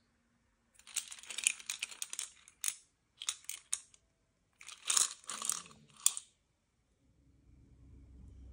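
Push pins, paper clips and binder clips rattling and clinking inside a stack of clear plastic containers as it is handled, in several short bursts of clicks. A low rumble comes in near the end.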